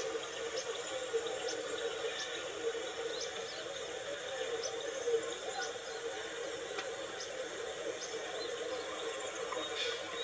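Steady background noise with faint, short high chirps at an irregular pace of about one or two a second.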